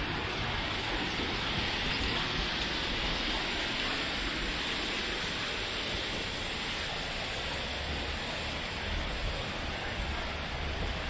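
Steady rushing of flowing river water, with low gusts of wind on the microphone near the end.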